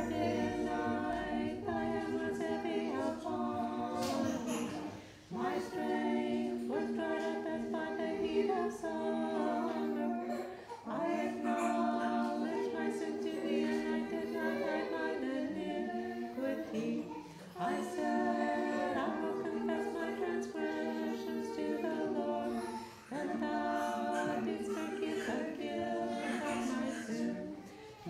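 Unaccompanied Orthodox liturgical chant: voices singing a hymn in phrases of about five to six seconds, each broken off by a short breath before the next.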